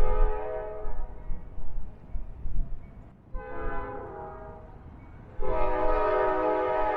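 Locomotive multi-chime air horn sounding over a low rumble. A held blast fades out in the first second or so, a short blast comes just past the middle, and a long blast starts about two-thirds through. This long–short–long ending matches the standard grade-crossing horn signal.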